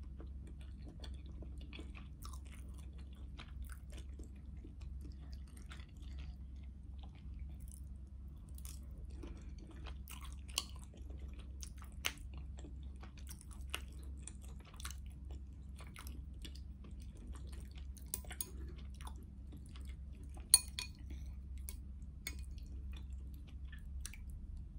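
A person chewing a mouthful of noodle soup with mushrooms and okra, with many small wet mouth clicks and a few sharper clicks, the loudest about twenty seconds in, over a steady low hum.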